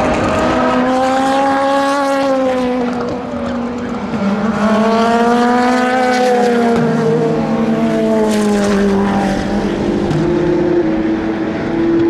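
Endurance race cars driving past one after another at speed. Their engine notes climb and then fall in pitch as each car goes by, with a sudden step down in pitch about seven seconds in.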